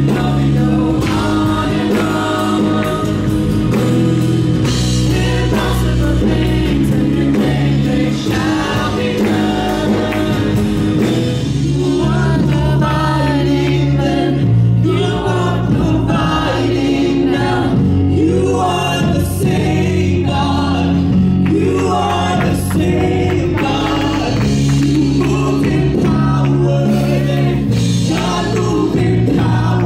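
Live contemporary worship band in a church, male and female voices singing over acoustic guitar, drums and a steady heavy bass.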